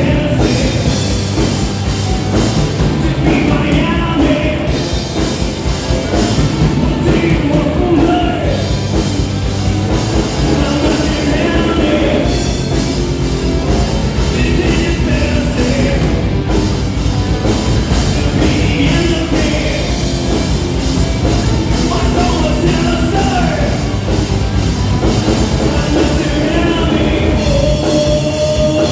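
Live rock band playing: electric guitars, bass and drum kit, loud and steady.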